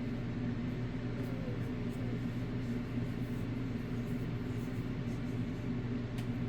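A steady low mechanical hum with a faint even hiss.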